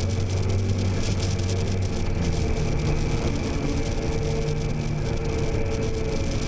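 Car engine running steadily, its note shifting to a different pitch about two seconds in.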